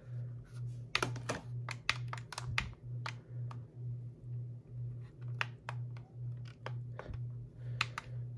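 Plastic keypad buttons on an Etón Zoneguard weather radio clicking as they are pressed, irregularly throughout, over a low hum that pulses about twice a second.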